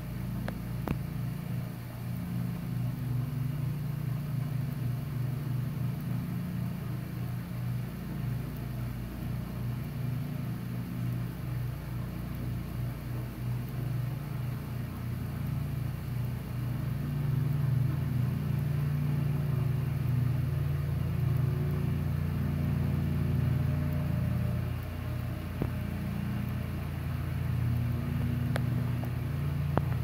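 A steady, low motor rumble with a humming drone, a little louder in the second half.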